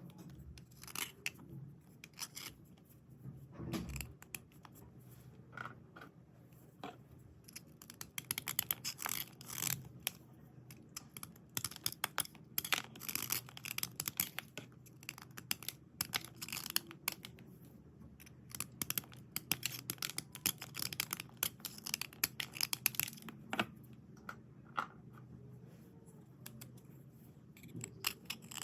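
Dry white slate pencils and slate bars being scraped and rubbed: short, crisp scratching strokes that come in irregular clusters with short pauses.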